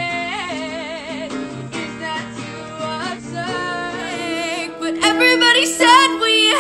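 A girl singing with vibrato to her own acoustic guitar. About four seconds in it cuts to a different recording of her singing, louder.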